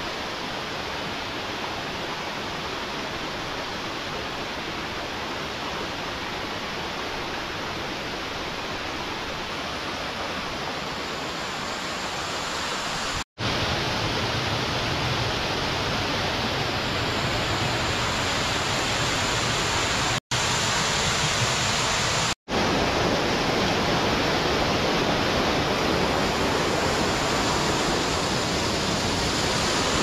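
Mountain stream water rushing over rocky waterfalls and cascades, a steady rush that gets a little louder about halfway through. It cuts out for an instant three times.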